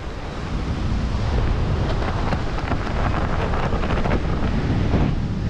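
Steady wind buffeting the camera microphone as a skydiver descends under an open parachute canopy.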